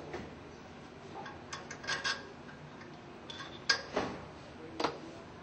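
A handful of short, sharp metallic clinks and knocks as stainless steel submersible pump parts and a shaft are handled and set down on a steel build plate held in a bench vise.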